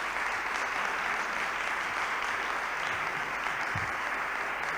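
Audience applauding, a steady even clapping.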